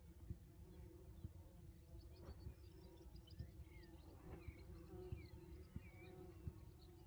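Bumblebees buzzing faintly and steadily. Small birds chirp in the background from about two seconds in, and wind buffets the microphone with low thuds.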